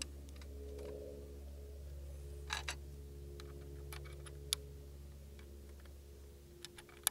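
Light clicks and taps of a small metal optic-mounting plate being handled and set onto a pistol slide's optic cut: a few scattered clicks, two close together about two and a half seconds in and a sharper one a couple of seconds later. A steady low hum runs underneath.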